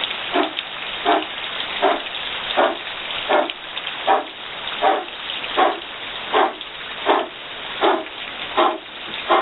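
Kapalbhati pranayama breathing: short, forceful exhalations snapped out through the nose in an even rhythm, about four every three seconds.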